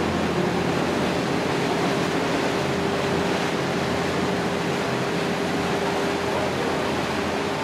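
A yacht under way: a steady engine hum with one held tone, over the rush of its churning wake.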